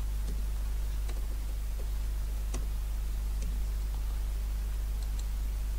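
A few faint, scattered clicks from a computer keyboard and mouse as code is edited, over a steady low hum.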